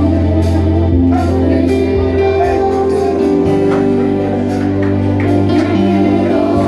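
Church worship music on a keyboard with an organ-like sound: sustained chords over a held bass note that shifts to a new note about halfway through.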